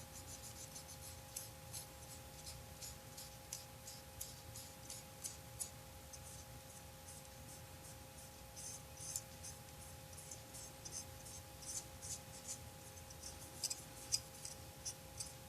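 Cotton swab scrubbing and wiping oil-paint weathering on a plastic scale model: faint, irregular scratchy strokes, several a second. A faint steady two-tone whine runs underneath.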